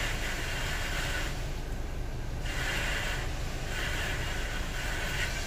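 Hissing from car-wash cleaning equipment in the vacuum bay, coming in several separate bursts of under a second and a half that start and stop abruptly, heard muffled from inside a car over a steady low cabin rumble.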